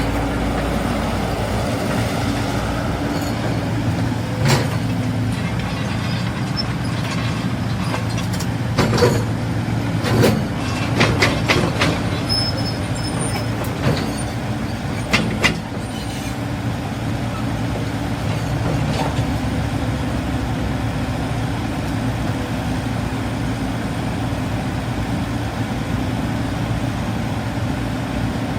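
Large diesel excavator engine running steadily, with a string of sharp metallic knocks and clanks through the first half.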